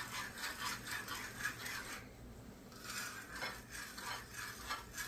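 A utensil stirring a thick, bubbling rum glaze of margarine and brown sugar, scraping round the bottom of a pot in quick, even strokes; the stirring pauses about two seconds in, then goes on.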